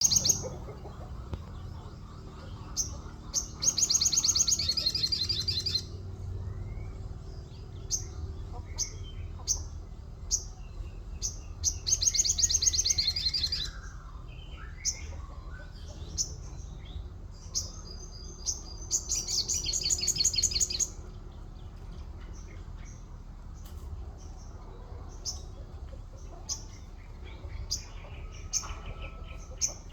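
Sogon songbird singing: many short, sharp chirps and three loud, rapid trills of about two seconds each. Its song includes 'wit wit' calls copied from a white-eye (pleci).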